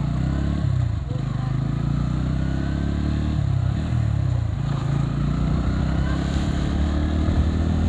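Motorcycle engine running while riding along a road, its pitch dropping and climbing back twice as the throttle is eased and reopened.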